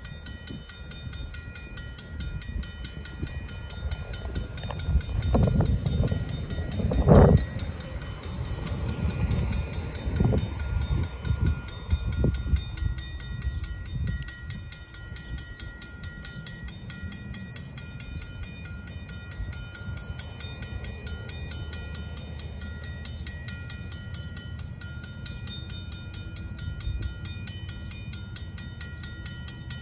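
Railroad grade-crossing warning bell ringing steadily while the flashing lights are active, which warns that a train is approaching. Bursts of low rumbling come between about four and fourteen seconds in, loudest about seven seconds in, then settle to a steady low hum under the bell.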